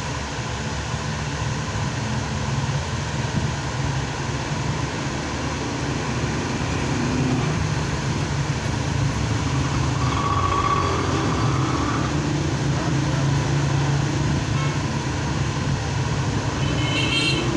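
Steady din of road traffic, with a brief higher tone about ten seconds in.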